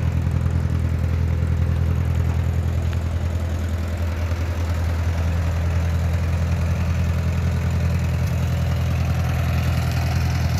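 1958 Ford 641 Workmaster tractor's four-cylinder gasoline engine running steadily at low throttle while the tractor is driven.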